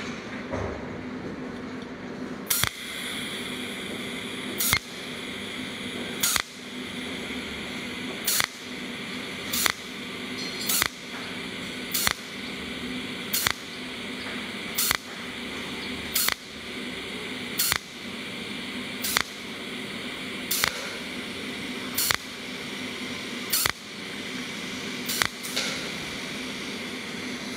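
Cold welding machine's tungsten-electrode torch firing single weld pulses, each a sharp snap, about one every one and a half seconds, over a steady hum and hiss. Each snap lays one overlapping weld spot along the groove being filled.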